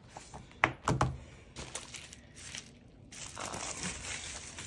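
Packaging and small items handled during an unboxing: two sharp clicks about a second in, then soft crinkling and rustling.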